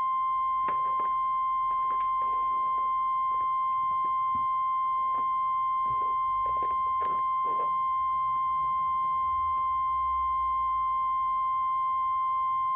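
Steady sine-wave line-up test tone played with colour bars. It holds one unchanging pitch, with faint clicks and knocks beneath it over the first eight seconds.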